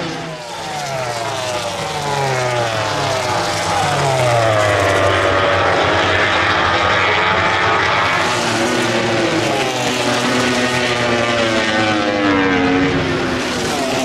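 MotoGP race bikes, Aprilia RS-GP big-bang V4s among them, passing close by at racing speed, more than one engine at once. Their engine notes fall as they slow into a corner, then climb in stepped rises through the gears as they accelerate away; this happens twice.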